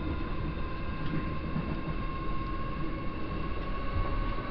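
Interior running noise of a moving passenger train: a steady low rumble with a faint steady whine above it, heard from inside the carriage.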